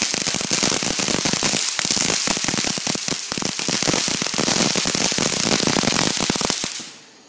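Ground firework going off, with dense, rapid crackling and popping as it throws out sparks. It dies away abruptly near the end.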